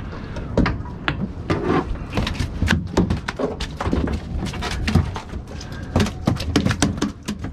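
Redfish and landing net knocking on a fiberglass boat deck as the fish is unhooked and held down: an irregular run of sharp taps and thumps, a few of them louder.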